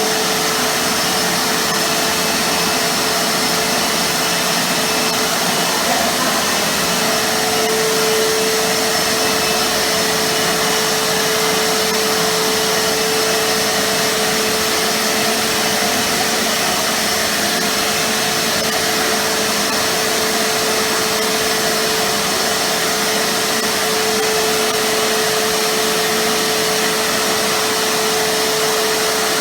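Titan TTB350VAC wet and dry vacuum cleaner running steadily: a constant motor whine over an even rush of air, with no change in speed.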